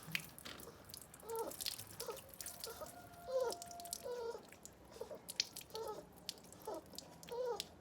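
Chickens clucking faintly: a string of short, bending calls about once a second, with a few light clicks and drips between them.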